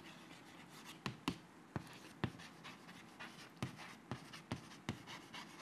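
Chalk writing on a blackboard: a string of sharp taps as the chalk strikes the board at uneven intervals, with faint scratching of the chalk between them.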